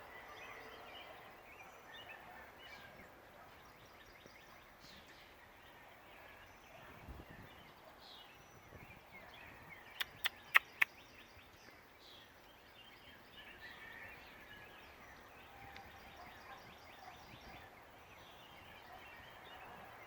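Quiet outdoor ambience with faint, scattered chirps from small birds. About ten seconds in come four sharp clicks in quick succession, louder than anything else.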